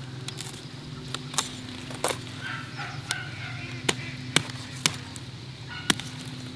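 Chickens clucking, with about eight sharp clicks or taps scattered through and a steady low hum underneath.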